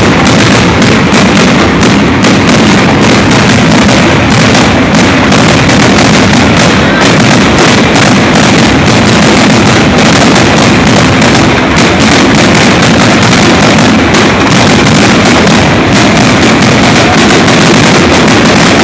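Fireworks display: a dense, unbroken barrage of rapid bangs and crackles, very loud.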